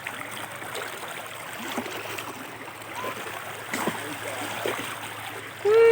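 Floodwater rushing steadily, with a person's voice starting near the end.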